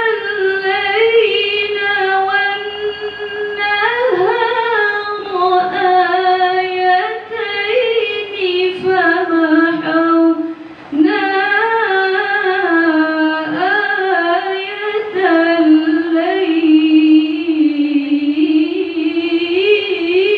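A young woman's voice reciting the Quran in the melodic tilawah style into a handheld microphone, drawing out long, ornamented notes whose pitch winds up and down, with a short pause for breath about halfway through.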